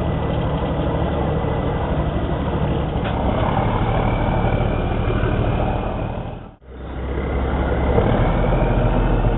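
A small boat's engine running steadily with a low hum. The sound drops out for an instant about two-thirds of the way through.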